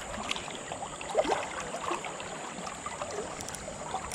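Shallow river water gurgling and splashing, a steady wash with many small uneven splashes.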